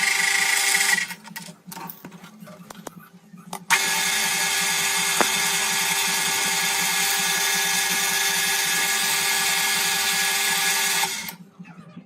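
CNC machine tool running with a steady whine and hiss. It stops about a second in, leaving a few light clicks, starts again just before four seconds, and cuts off near the end.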